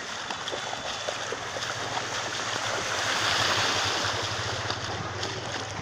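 Floodwater rushing, a steady hiss that swells about three seconds in and eases off toward the end, over a low steady hum.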